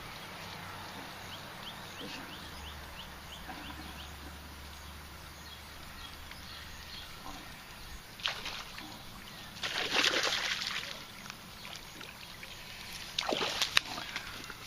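Water splashing and sloshing in three short bursts, the loudest about ten seconds in, over a steady outdoor background.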